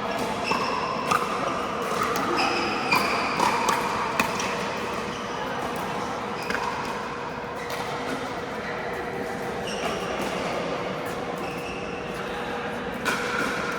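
Pickleball play in a large, echoing indoor hall: sharp pops of paddle and ball, thickest in the first few seconds and again near the end, with short high squeaks of shoes on the court floor.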